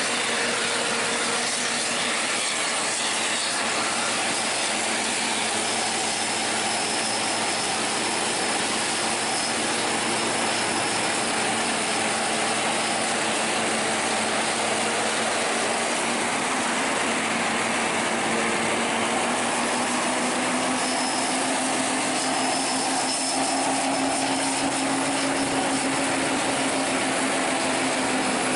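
Steady rush of road traffic heard from a moving vehicle: bus engines, tyres and wind together, with an engine note climbing slightly about two-thirds of the way through.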